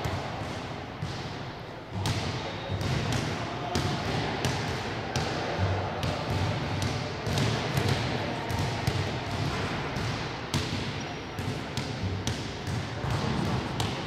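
Sports hall ambience: basketballs bouncing on a hard court floor again and again at an irregular pace, over a background of indistinct voices.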